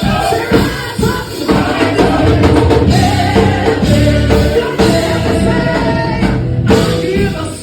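Live church worship music: singing over a band with drums, loud and continuous.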